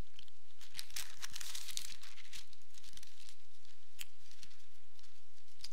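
Sheets of paper rustling and crinkling as they are handled close to a microphone, in irregular crackles with a few sharp clicks.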